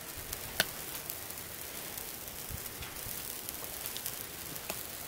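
Pancake batter and oil sizzling with fine crackles on a hot Blackstone griddle top, with one sharp click about half a second in.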